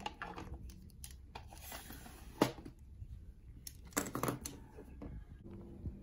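Pens and metal binder clips clattering in a small plastic desk drawer as a hand rummages through it. A single sharp knock comes about two and a half seconds in, then a cluster of light clacks around four seconds in as pencils and a drawing compass are laid on the desk.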